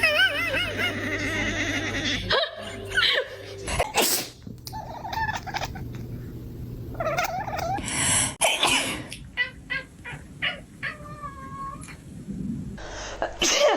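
A string of short, abruptly cut clips: human sneezes as sudden bursts, with cats' warbling vocal calls between them.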